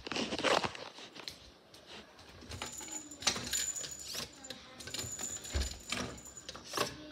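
Handling noise from a handheld phone being moved about: irregular rustles and light clicks as hair and clothing brush against the microphone.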